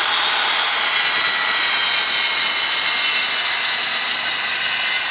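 Circular saw running steadily under load, cutting lengthwise through a sheet of plywood in one continuous squaring cut along a guide rail.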